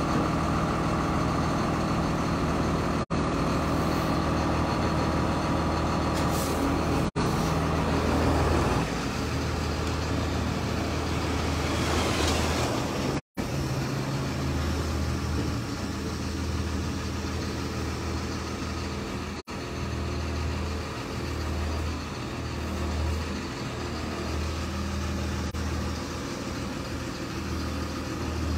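Diesel engine of a Cat 320E tracked excavator running steadily with a low hum, with a louder rushing hiss about twelve seconds in. The sound drops out briefly four times.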